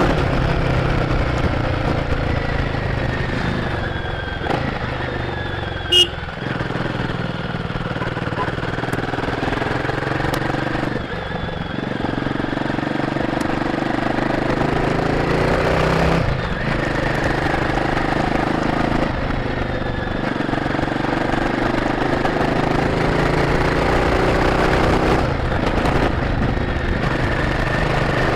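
Royal Enfield Guerrilla 450's single-cylinder engine on its stock exhaust, heard from the rider's seat while riding, with the revs repeatedly climbing and then dropping away as the throttle is eased and gears are changed. A single sharp click about six seconds in is the loudest moment.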